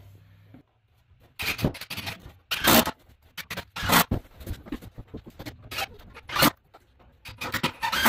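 Irregular scrapes and knocks of 2x4 framing lumber being handled and shifted on a hardwood floor, loudest about a third of the way in, near the middle and late on.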